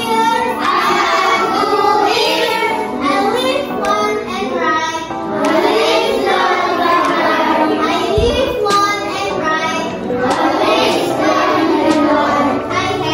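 A children's song: young voices singing together over music, without a break.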